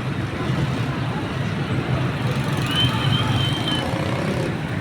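Steady low rumble of road traffic, with a thin high whistle lasting about a second near the middle.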